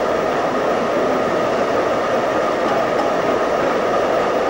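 Fast-flowing river rapids: white water rushing steadily.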